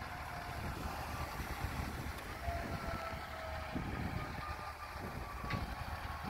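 Fire engine's diesel engine idling with a steady low rumble, a faint high tone drifting slowly down in pitch above it.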